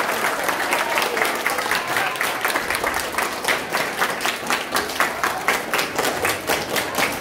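A crowd of people clapping: scattered applause that settles into steady clapping in unison, about three claps a second, from a couple of seconds in.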